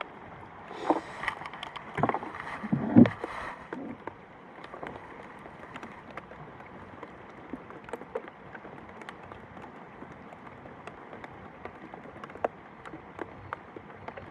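Steady rain falling, an even hiss dotted with small drop ticks. In the first few seconds there are several louder knocks and rustles of handling.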